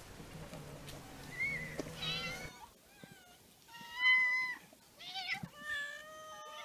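Several stray cats meowing, begging to be fed. The calls come one after another, the loudest about four seconds in, with several cats calling over each other near the end.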